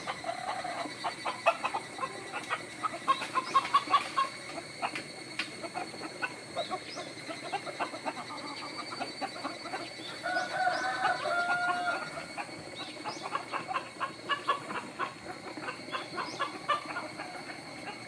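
Chickens clucking with many short, sharp calls. About ten seconds in, one bird gives a louder, longer two-part call.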